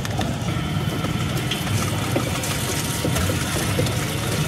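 Stainless-steel citrus juicer machine running with a steady low hum and rumble as peeled sweet lemons and kinnows are pressed through it, with juice streaming from the spout into a plastic jug.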